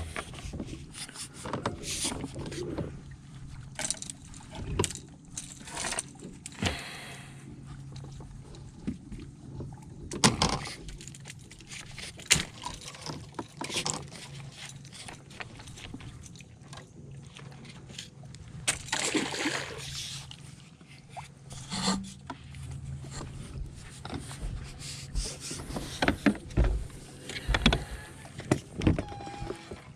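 A push pole being worked from a bass boat: irregular knocks and scrapes of the pole against the boat, with splashes of water as it is pushed and pulled, over a steady low hum.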